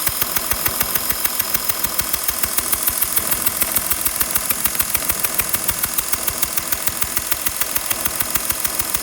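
2012 Porsche Cayenne 3.0 V6 diesel idling, with an even, sharp ticking or puffing about six or seven times a second, the kind of beat an exhaust leak at one cylinder makes, which the owner suspects.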